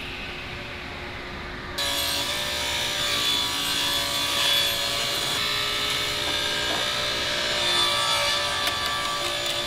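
Table saw running, then about two seconds in it becomes suddenly louder and stays loud as it rips a thin strip of wood fed along the fence.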